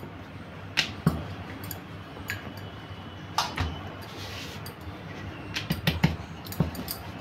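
Wooden rolling pin rolling and knocking against a round wooden board while rolling out maida dough: scattered light knocks, a brief rub of a hand over the dough about four seconds in, and a quick run of knocks near the end.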